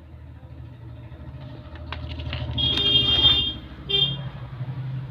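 Vehicle horn honks, one long and one short, over a steady low rumble of traffic engines, with a few clicks just before the first honk.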